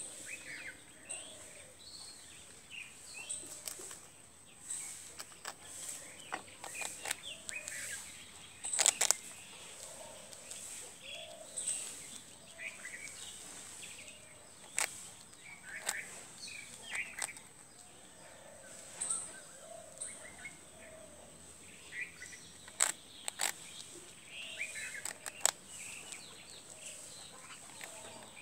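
A squirrel gnawing and crunching hard toast: irregular sharp crunches and clicks, loudest in a cluster about nine seconds in. Birds chirp in the background over a steady high tone.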